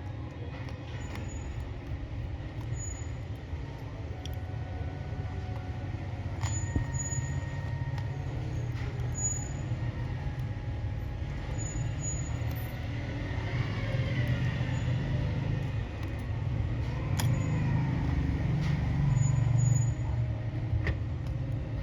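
Steady low rumble that slowly grows louder, with scattered faint clicks and brief thin tones over it.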